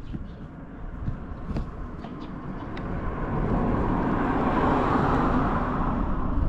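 Buell XB12SS Lightning's air-cooled V-twin idling through a Strike Weapon aftermarket exhaust, a low uneven rumble. A louder rushing noise builds from about halfway and stops abruptly near the end.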